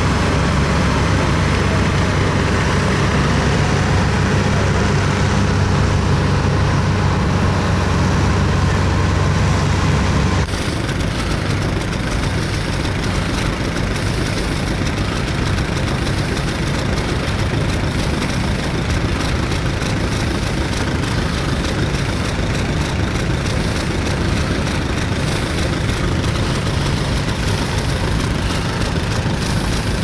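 Heavy engine idling steadily with a strong low hum, cutting off abruptly about ten seconds in to more distant tractor engines running under a noisier background hiss.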